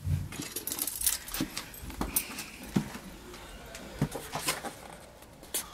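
Irregular clicks, knocks and light metallic rattles as a sprung steel foothold trap and its chain are picked up and handled.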